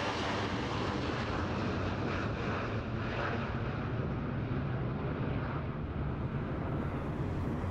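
Jet engines of an Airbus A320-family airliner on short final approach: a steady rushing rumble that holds on without a break.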